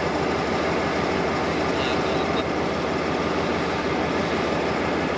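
Diesel engine of a stationary HST (Class 43) power car idling steadily.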